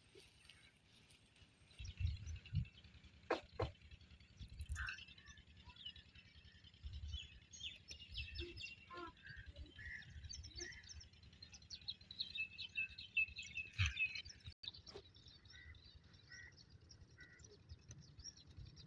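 Small birds chirping in short, repeated calls over quiet rural outdoor ambience, with scattered low thumps.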